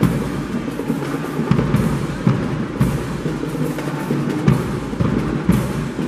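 High school marching band playing, with its drum section of bass drums and snares carrying a steady beat over the band.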